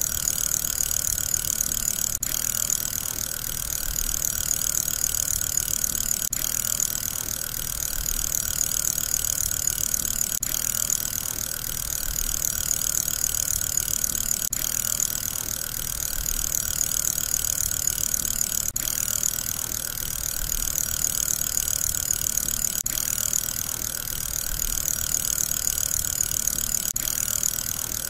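Fidget spinner whirring steadily on its ball bearing, a hissing whir that swells and dips gently about every four seconds, with a tiny break each time as the sound repeats.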